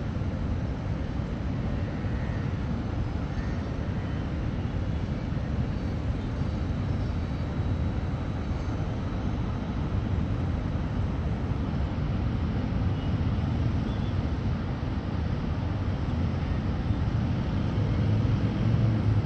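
Steady low rumble of city ambience heard from high above the streets, with no distinct events; it swells slightly near the end.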